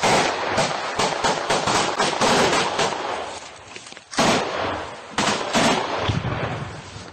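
Close small-arms gunfire: many rifle shots in quick succession for about three seconds, then a few single loud shots about four and five seconds in, dying away near the end.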